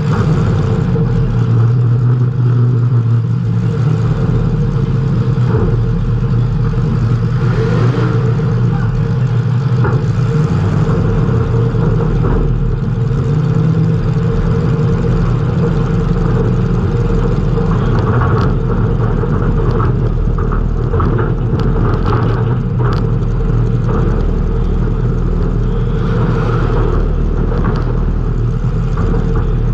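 Race car engine running hard at fairly steady revs, heard from a camera mounted inside the car. Scattered sharp knocks and rattles come through between about 18 and 23 seconds in.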